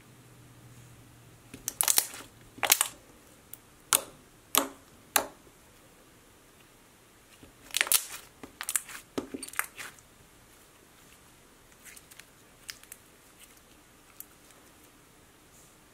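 Thick white slime being squeezed, pressed and stretched by hand, giving off sharp pops and clicks from trapped air, some in quick clusters. The pops are loudest about two, three, four to five and eight to nine seconds in, and fewer and fainter near the end.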